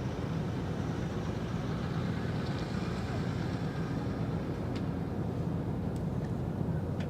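Steady low engine rumble with no change in level, with a couple of faint clicks about five seconds in.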